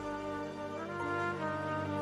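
Worship band playing slow, sustained chords over a bass line, moving to a new chord about a second in.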